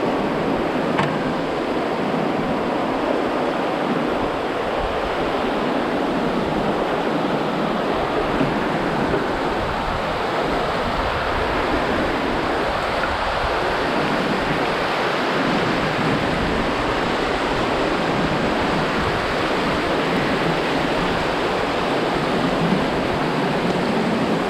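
River rapids rushing steadily, a continuous wash of moving whitewater.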